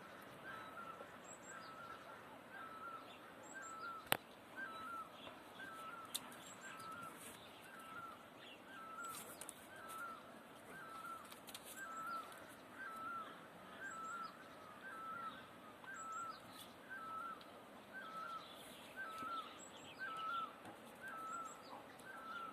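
A bird calling the same short note over and over at an even pace, a little more than once a second, with one sharp click about four seconds in.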